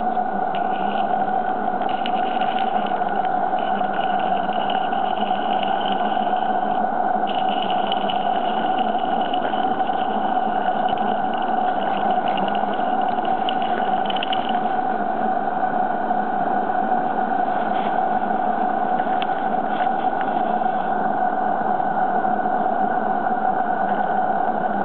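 Accucraft live-steam Baldwin War Department model locomotive in steam: a steady hiss with a constant hum. A fainter, higher tone comes and goes during the first half.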